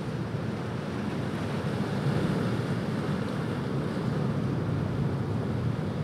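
Ocean surf breaking and washing on a beach: a steady rush of waves that swells slightly about two seconds in.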